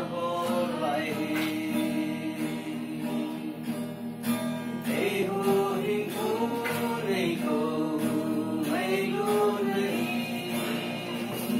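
A gospel song sung by voices over a guitar accompaniment, the sung notes held and bending in pitch.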